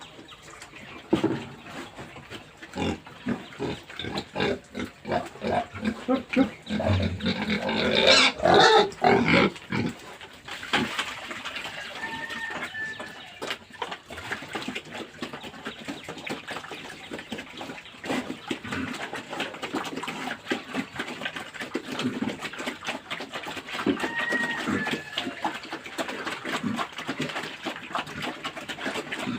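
Pigs grunting, with a loud bout of squealing about eight seconds in.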